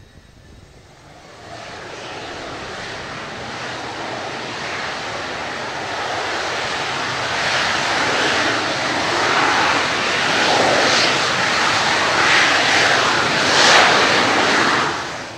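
Jet roar from the twin J79 turbojets of an F-4EJ Kai Phantom II as the jet rolls past on the ground. It grows steadily louder, peaks near the end, then drops away sharply.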